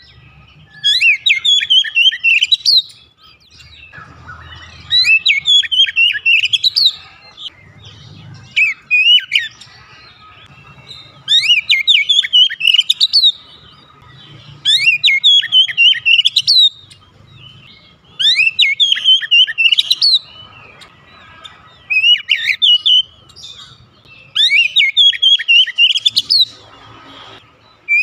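Oriental magpie-robin (kacer) singing: about eight loud phrases of rapid, varied whistled notes, each lasting about two seconds, with short pauses of about a second between them.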